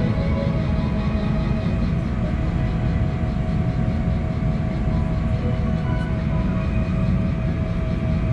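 Boeing 777-300 cabin noise while taxiing slowly: a steady low rumble with a steady whine held above it.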